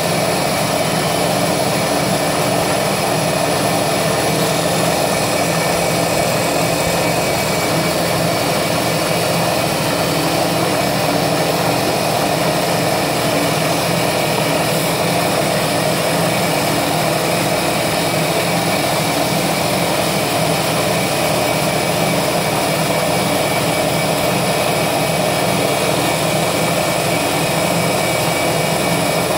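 CNC milling machine spindle running steadily while a small end mill cuts thin aluminium plate.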